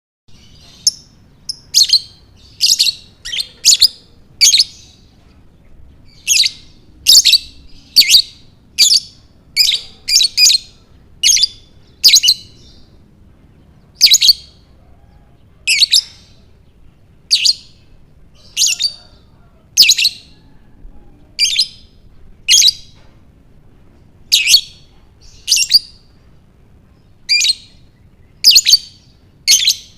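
A lovebird chirping: short, loud, high-pitched calls, about one a second and sometimes in quick clusters of two or three.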